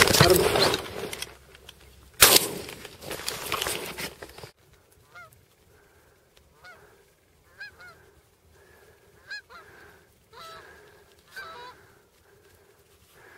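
Two shotgun shots about two seconds apart, the first right at the start. A few seconds later comes a run of short Canada goose honks, about one a second.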